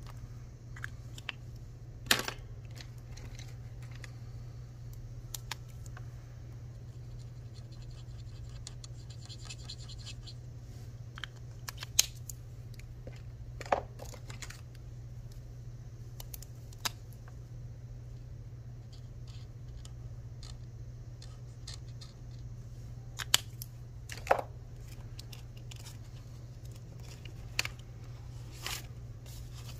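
Felt-tip marker scratching on a card as it colors in small boxes, over a steady low hum, with a few sharp clicks and taps scattered through.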